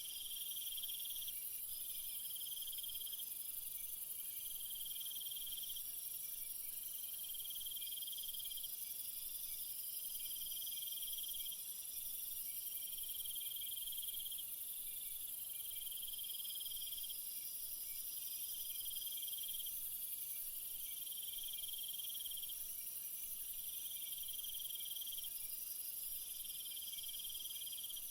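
A chorus of insects trilling: repeated chirping trills about a second and a half long with short gaps, a second, higher trill running alongside, and a steady high hiss behind them.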